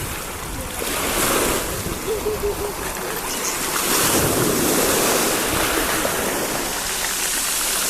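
Stormy sea surf rushing and breaking on the shore, swelling louder about a second in and again around four seconds, with wind buffeting the microphone.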